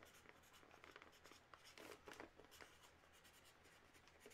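Faint scratching strokes of a felt-tip marker writing on a plastic bag.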